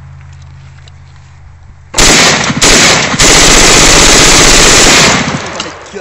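Short-barrelled AR-15 bump-fired from the hip: about two seconds in, a loud, rapid string of shots starts, breaks off briefly twice, then runs on as one long burst for about two seconds before stopping. The full-auto-like rate comes from bump firing, with the rifle's recoil working the trigger against the shooter's finger.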